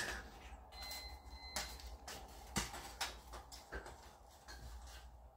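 A cat's claws catching and scraping on a rope net and wooden climbing frame as it climbs: scattered soft clicks and scratches.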